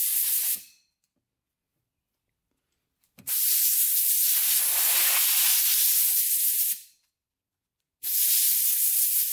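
Compressed-air blow gun blasting air through a pleated paper ATV air filter to blow out the dirt, in hissing bursts that start and stop sharply. One burst ends about half a second in, a longer one of about three and a half seconds starts about three seconds in, and a third starts near the end.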